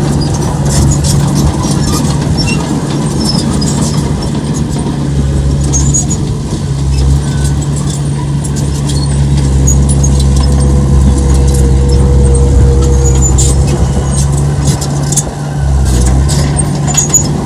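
Heavy earthmoving machinery engine running steadily with a low rumbling hum, with scattered high clicks and squeaks over it.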